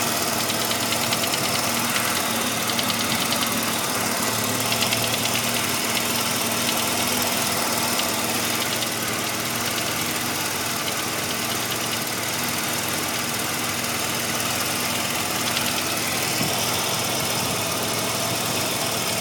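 1985 Mazda RX-7's rotary engine running warm and steady, with a repeated knock ticking over the engine note. The knock shows only once the engine is warmed up, and its cause is unknown; the owner hopes it is a pulley.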